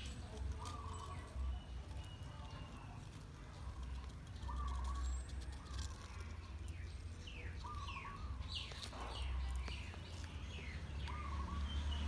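Birds calling: a short warbling call repeated about six times, with a run of quick falling chirps a little past the middle, over a steady low rumble.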